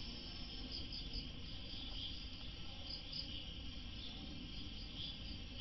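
Low, steady background noise with faint, scattered insect chirping.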